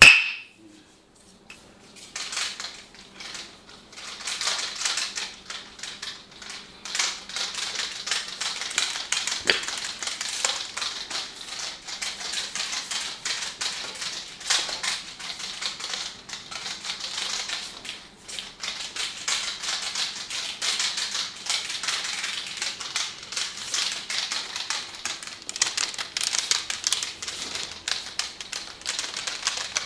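A barber's hands working quickly during a massage, making a dense, irregular stream of quick clicks and crackles. It opens with a single sharp crack.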